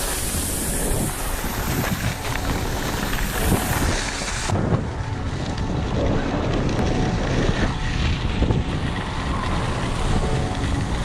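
Wind rushing over the camera microphone while riding downhill on skiboards, a steady noisy rush that loses its hiss about four and a half seconds in.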